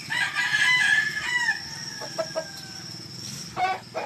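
A gamefowl rooster crowing once, loud for about a second and a half and trailing off in a long falling note, followed by a few short clucks near the end.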